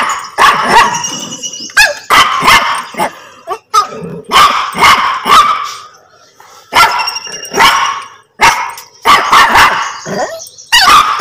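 Small dog barking repeatedly at close range, in clusters of sharp barks every second or two.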